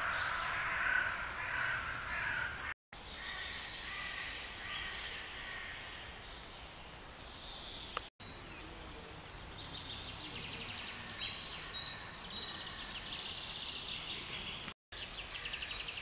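Outdoor woodland ambience with wild birds calling and chirping over a low background hiss, broken three times by a brief silent dropout.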